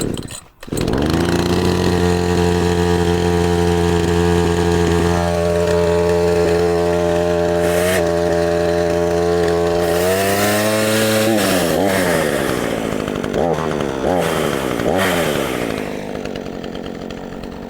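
Craftsman 18-inch 2-stroke chainsaw engine starting from cold. It catches about a second in and idles steadily, then is revved up and down several times between about 10 and 15 seconds before easing back toward idle.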